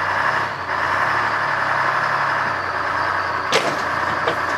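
AVGP Cougar armoured car's Detroit Diesel engine running steadily at low speed as the vehicle creeps toward a tow hookup, with a sharp knock about three and a half seconds in and a lighter one shortly after.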